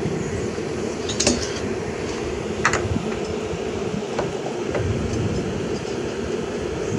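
Steady low rumble of wind buffeting the microphone, with a few faint metallic clicks as a steel V-belt pulley is slid onto the engine's shaft.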